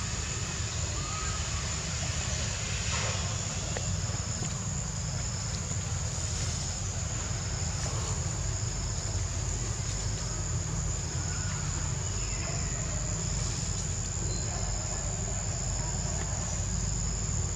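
Insect chorus: a steady high-pitched buzz with short chirps repeating about once a second, over a low steady rumble.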